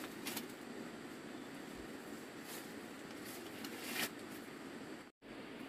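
Dry corn husks crinkling in a few short rustles as ears of dried corn are handled and their husks pulled back, the loudest about four seconds in, over a steady low background hiss. The sound cuts out completely for an instant just after five seconds.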